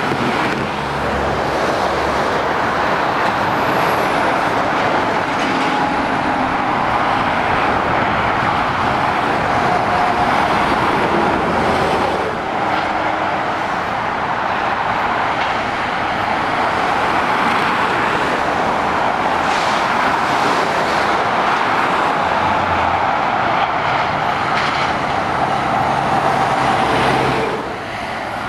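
Steady motorway traffic: lorries and cars passing below, a continuous wash of tyre noise with the diesel engines of heavy goods vehicles.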